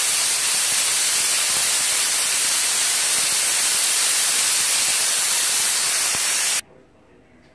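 Pressure cooker on a gas stove hissing steadily as steam escapes from its vent under pressure, a loud even hiss with no whistle tone. It cuts off abruptly near the end.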